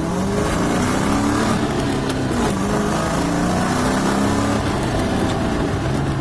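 1998 Ford Mustang's 4.6-litre V8 accelerating on the road, its pitch climbing and then dropping back about twice as it shifts up. It pulls cleanly under throttle with no stumble, now that the engine has a new ECU.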